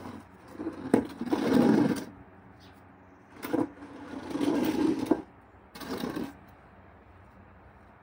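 Wicker patio armchairs being dragged across a paved terrace floor: four scraping drags in the first six seconds or so, the longest about a second each.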